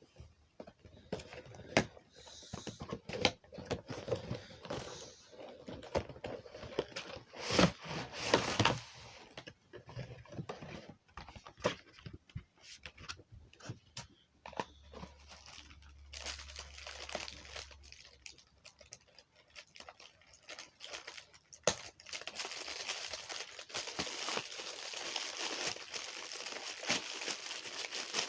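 Cardboard and paper packaging of an action-figure box being opened by hand: scattered sharp clicks and knocks with some tearing, then continuous crinkling from about three-quarters of the way through.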